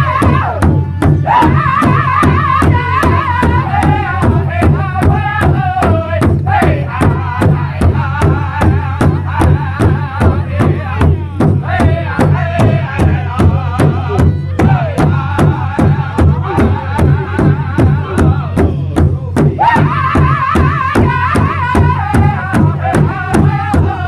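Powwow drum group singing in high-pitched unison while striking a large hide-headed drum together with padded beaters in a steady beat of about three strokes a second. The singing drops out briefly a few times while the drumbeat carries on.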